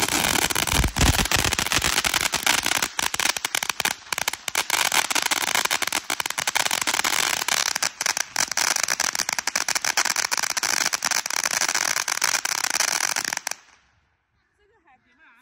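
Fireworks crackling in a dense, continuous rattle of rapid pops for about thirteen seconds, then stopping abruptly.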